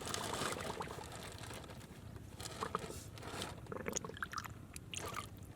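Hands working in wet mud and water: irregular squelching, scraping and small splashes, with short sharp clicks scattered through.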